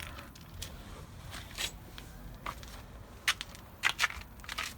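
Scattered clicks and light clatter of broken plastic and electronic debris being handled and shifted, with a few sharper knocks.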